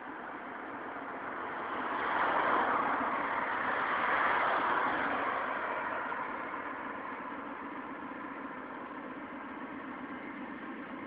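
A car drives past on the road, its tyre and engine noise swelling to a peak a few seconds in and then fading as it moves away. A steady low engine hum carries on after it.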